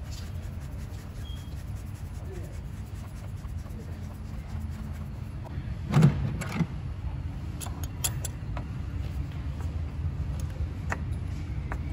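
A few sharp clicks and knocks of a pump plier being fitted to and gripping an oil filter housing cap to tighten it, the loudest knock about halfway through. A steady low rumble runs underneath.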